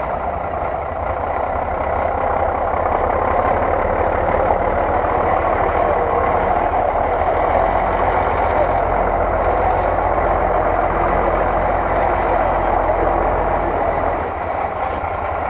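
Engine of a lifted Jeep Cherokee on oversized mud tyres running at low revs as the truck crawls through tall grass, a steady drone with a pulsing low rumble. It grows a little louder about two seconds in and eases off near the end.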